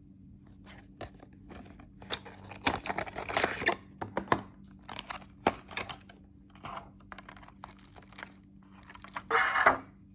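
Packaging of a boxed scale model aircraft being opened by hand: crinkling and tearing with sharp clicks and taps, and a louder rustling burst near the end.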